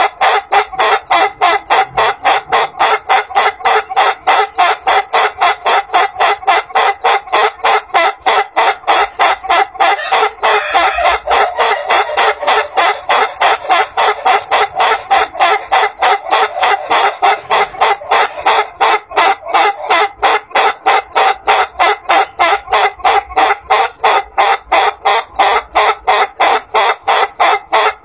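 Ayam Ketawa (laughing rooster) crowing: a long, unbroken run of short, laugh-like notes at about three a second, without a pause for breath.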